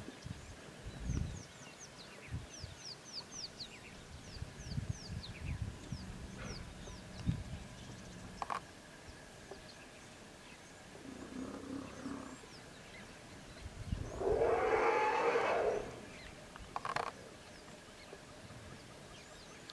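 African elephant giving a loud trumpeting call lasting nearly two seconds, about three-quarters of the way through, with a shorter, lower call a few seconds before it. Earlier, small birds chirp with quick falling notes over scattered low thumps.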